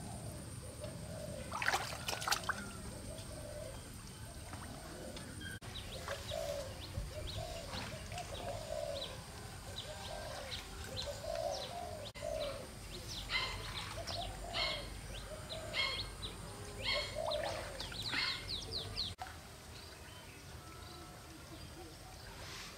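Water splashing and trickling, with birds chirping now and then.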